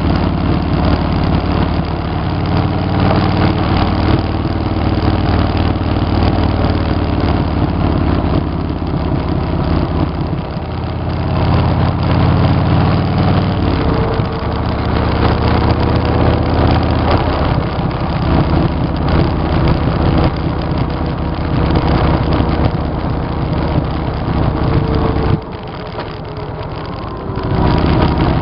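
Cruiser motorcycle's V-twin engine running on the road, with steady wind rush. The engine note and loudness drop briefly a few seconds before the end, as if the throttle is eased off, then pick back up.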